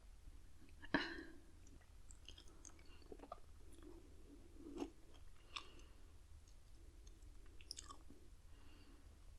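A Pocky chocolate-coated biscuit stick snapped off with a bite about a second in, then chewed, with small crunches scattered through the chewing.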